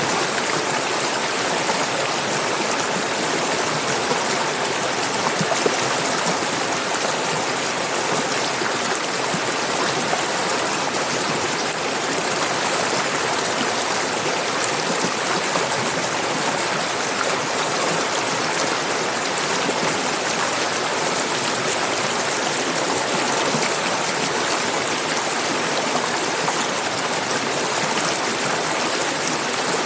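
Clear mountain stream running over rocks, a steady rush of flowing water with a bright hiss.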